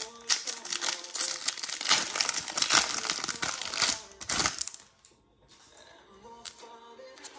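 Pokémon card booster pack's foil wrapper crinkling and tearing as it is opened and the cards are pulled out, stopping about four and a half seconds in.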